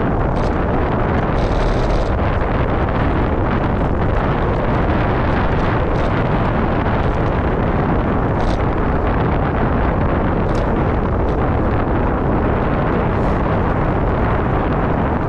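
Steady wind rumble buffeting a moving GoPro's microphone, with a few faint brief ticks through it.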